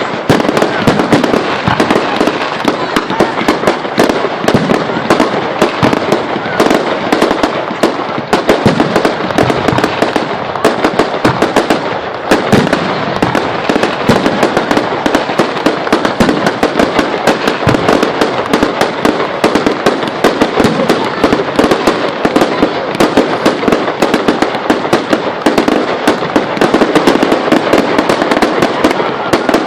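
Fireworks display in full barrage: a dense, unbroken stream of bangs and crackles, many a second.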